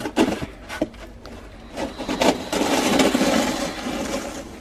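Snow shovel blade scraping along pavement as it pushes snow: a few short scrapes, then a longer continuous push from about halfway through.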